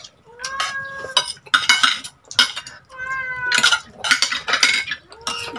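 A cat meowing three times, each a drawn-out meow, over the clink and scrape of a metal spoon and fork on a plate.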